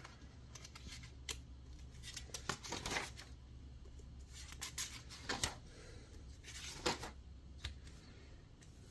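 Pages of a spiral-bound paperback workbook being turned one after another, several faint paper swishes and rustles a second or two apart.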